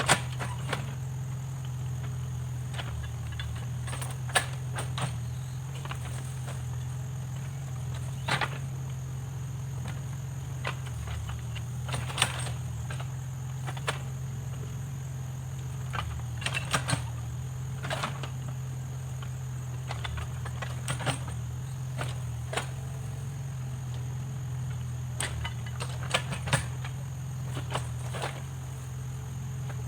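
Backhoe loader's diesel engine running at a steady low hum, with irregular sharp knocks and clanks every second or two.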